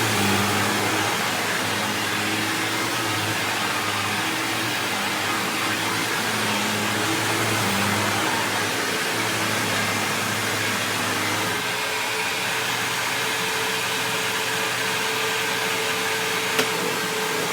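1999 Hoover WindTunnel Self-Propelled Ultra upright vacuum cleaner running steadily with a constant whooshing motor noise. About two-thirds of the way through, its low hum changes to a higher steady tone. A single brief click comes near the end.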